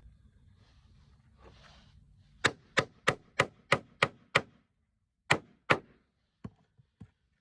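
Hammer striking a nail into timber: seven quick blows at about three a second, then two more, and a few lighter taps near the end.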